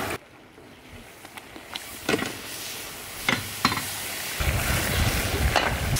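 Curry sizzling in a large open metal cooking tray, with a few sharp knocks of the stirring paddle against the tray. About four seconds in, a low rumble sets in under it.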